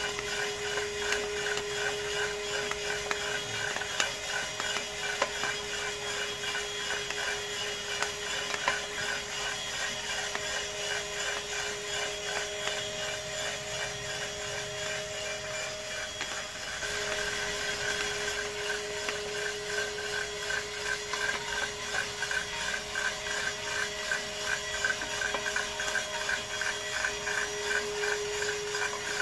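Home-built drum coffee roaster running: a steady motor hum under the fast rattle and scrape of coffee beans tumbling in the turning drum, with a few sharp clicks. The sound dips briefly about two-thirds of the way through.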